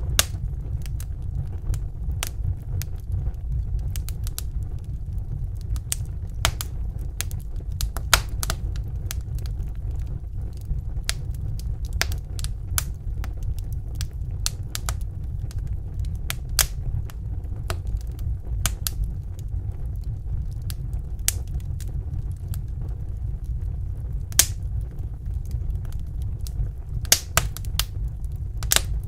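Wood fire in a fireplace burning with a steady low rumble and irregular sharp crackles and pops, a few of them noticeably louder.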